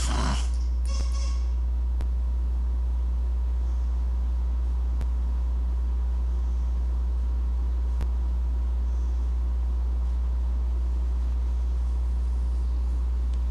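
Steady low hum or rumble with no change in level. About a second in, a brief buzz fades out, the tail of the steady-hand game's buzzer. A few faint clicks follow.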